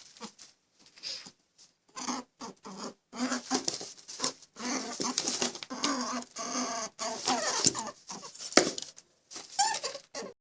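Small animal calls: many short squeaks, chirps and clucks in quick irregular succession, with brief gaps.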